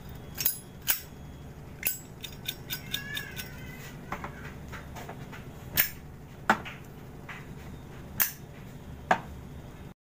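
Zippo-style windproof lighters being flicked open, struck and snapped shut: a run of sharp metallic clicks and clinks at irregular intervals, with a flurry of quicker small ticks around two to three seconds in.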